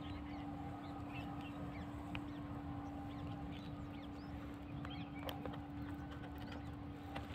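Faint bird calls, short scattered chirps, over a steady low hum and background rumble.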